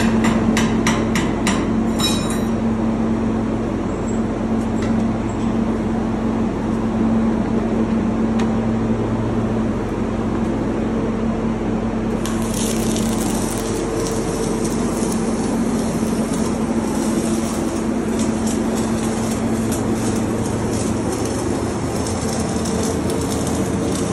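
Electric arc welding: a few sharp metallic taps near the start, then from about halfway through the arc crackles and sizzles steadily. Throughout there is a steady low machinery hum.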